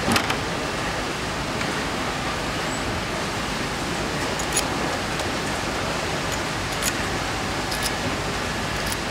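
Steady hiss of factory-hall background noise, broken by several short sharp clicks of small metal valvetrain parts being set into a cylinder head and its parts fixture, the loudest right at the start.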